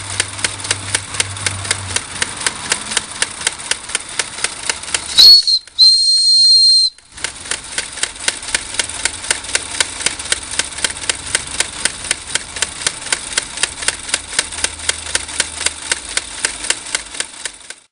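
Wilesco D20 model steam engine running with a quick, even chuff of about five exhaust beats a second. About five seconds in, its steam whistle gives a short toot and then a steady high whistle for just over a second, the loudest sound here, after which the chuffing resumes.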